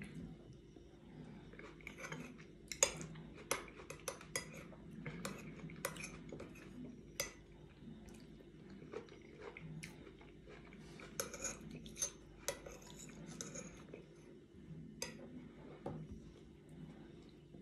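Metal spoon clinking and scraping against a porcelain bowl while a fruit salad with yogurt is scooped up and eaten, in irregular light clinks with the sharpest near 3 s and around 12 s.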